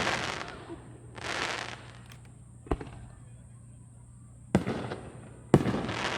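Aerial fireworks shells bursting. Sharp booms come about 2.7, 4.5 and 5.5 seconds in, each trailing off in a rolling echo, and a short hiss comes about a second in.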